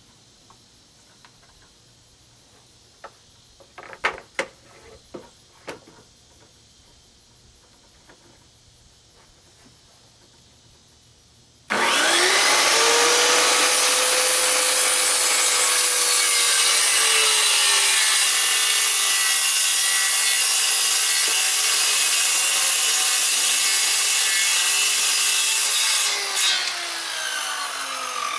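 Corded circular saw cutting a long free-hand line along a plywood boat stringer. After a quiet stretch with a few knocks from handling the board, the saw starts sharply near the middle, cuts steadily for about fourteen seconds, then is released and winds down.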